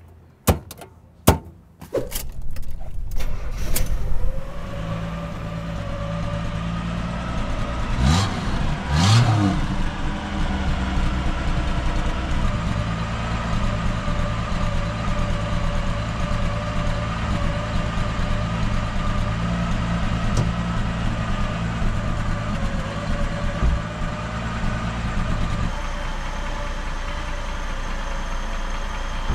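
A glove box door clicks shut, then the Firebird's 230 cubic-inch overhead-cam inline six starts about two seconds in and settles into a steady, smooth idle. It is blipped twice, about eight and nine seconds in, and the idle settles slightly lower near the end.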